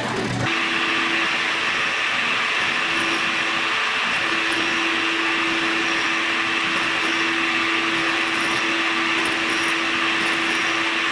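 A metal lathe drilling for a moment, then, about half a second in, a milling machine running steadily as its cutter machines lugs into a round metal coupler held in a chuck. A steady hum drops out briefly about four seconds in.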